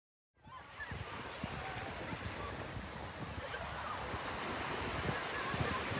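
North Sea surf washing onto a sandy beach, with wind buffeting the microphone; the sound fades in about half a second in.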